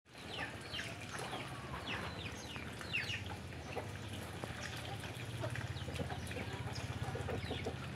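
Young fowl peeping: short, high calls that fall in pitch, many in the first few seconds and fewer later, over a low steady hum.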